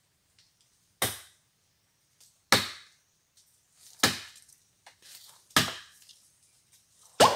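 A hand-held blade chopping into wood: five sharp blows about a second and a half apart.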